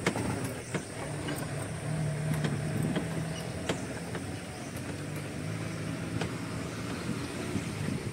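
Safari jeep's engine running steadily as it drives along a rough dirt forest track, with scattered knocks and rattles from the bumps.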